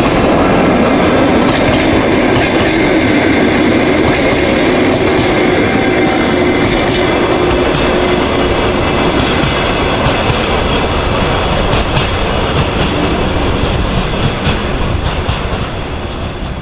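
Passenger coaches rolling past at speed, steel wheels on rail with a clickety-clack over the rail joints. After the last coach passes, the noise tails off as the train draws away, fading most in the last couple of seconds.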